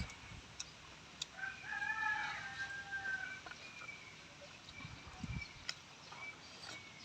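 A rooster crowing once, one call lasting about two seconds, with a few faint clicks scattered around it.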